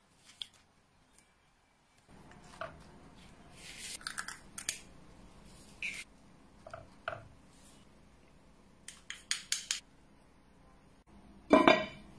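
Kitchen utensils clinking and scraping against a ceramic bowl, a small pan and a pot in a scattered run of short strokes. Near the end a ceramic tagine lid is set down on the pot with a loud, ringing clank.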